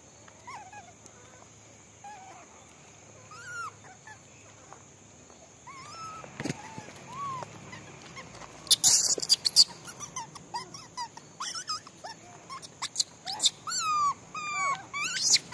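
Rhesus macaques giving short, squeaky whimper-like calls that rise and fall in pitch, sparse at first and coming thick and fast in the second half. About nine seconds in, and again near the end, there are loud bursts of rustling and crackling as a monkey's fur brushes against the microphone.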